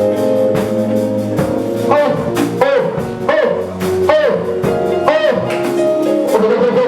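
Live worship music: guitar playing over steady held chords.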